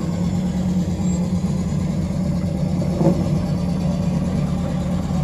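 Classic car engine idling steadily at a low, even pitch, with a short blip about three seconds in.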